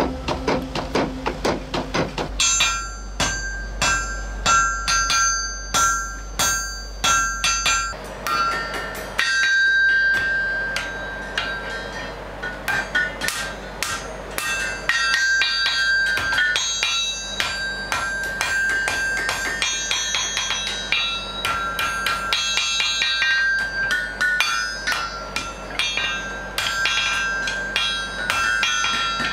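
Blacksmith's hand hammer striking glowing iron on an anvil, rhythmic blows with the anvil ringing bright and bell-like between strikes. In the first couple of seconds the heavier, lower, rapid strokes of the forge's mechanical tilt hammer pound the hot bar.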